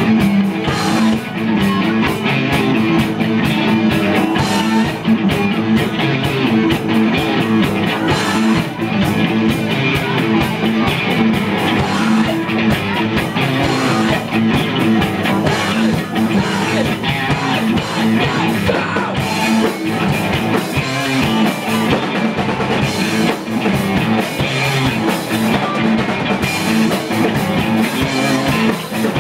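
Rock band playing live through amplifiers: electric guitars, bass guitar and drum kit, loud and continuous.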